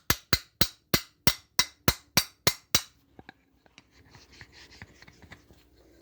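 Quick, evenly spaced hammer taps, about three a second, that stop about three seconds in, followed by faint handling noise and one loud knock at the very end.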